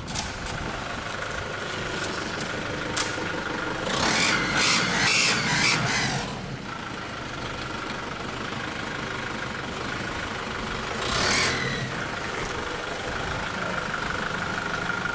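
2001 Nissan Patrol 3.0 L turbodiesel running with a steady high whistle at the turbo, swelling into a louder rushing sound twice, from about four to six seconds in and again near eleven seconds. The whistle comes from exhaust gas leaking past a burnt-through exhaust manifold gasket, the cause of the engine's loss of power.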